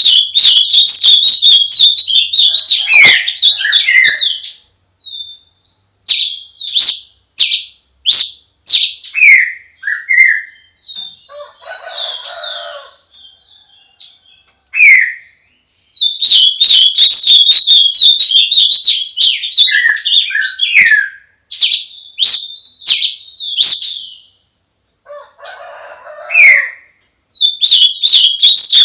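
Dawn chorus of songbirds singing close by: long bouts of fast chattering trills and short downslurred whistled notes. Twice, in the middle and near the end, a fainter, lower call of about two seconds sounds behind them.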